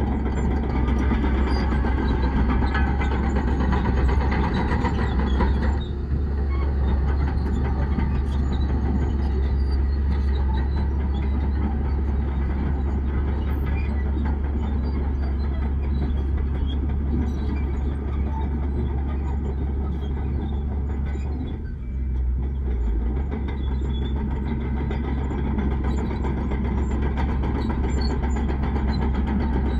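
Bulldozer's diesel engine running steadily under load while pushing soil, dipping briefly twice, about six seconds in and again near twenty-two seconds.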